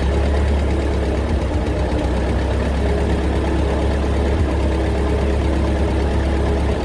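1956 Massey Ferguson TO35 tractor engine idling steadily, with a valve tapping that the owner puts down to valves in need of adjustment.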